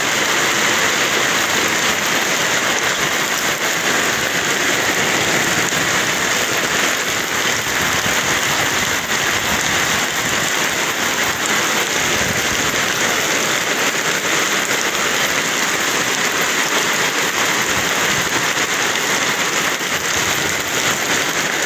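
Heavy rain pouring down, a steady, even hiss with no letup.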